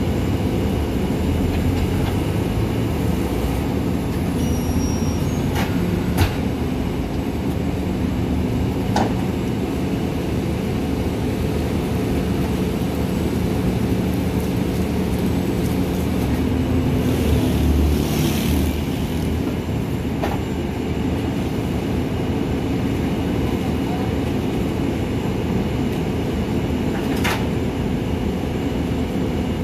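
Garbage truck's diesel engine running steadily under PTO load while the Repsa rear-loader's hydraulic packer blade cycles through the hopper. A few sharp metallic clanks come through, and there is a short hissing rush a little past the middle.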